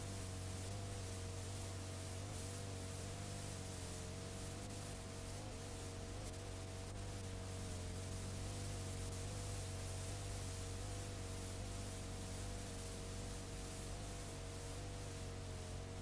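Steady hiss and hum of a blank, unrecorded stretch of videotape playing back, with two faint tones in the middle that waver slightly in pitch.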